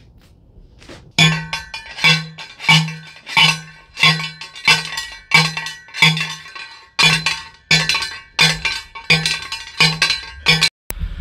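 Hand post driver slamming down onto a metal ground rod, driving it into the ground: sharp ringing metal clanks, about one and a half a second, with a short pause partway through.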